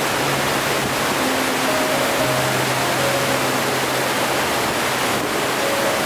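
Waterfall rushing steadily, a dense even roar of falling water, over soft background music with a few held notes.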